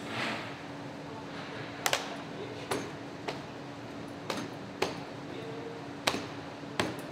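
Flexible window slide track being pressed by hand into the bottom rail of a window frame, snapping into place in a series of sharp, irregular clicks that start about two seconds in.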